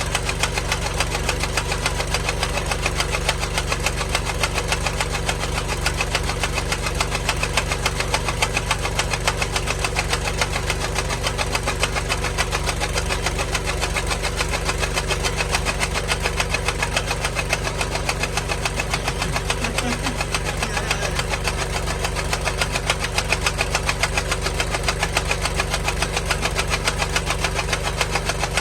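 An engine running steadily at an even speed, with a rapid, regular knocking pulse.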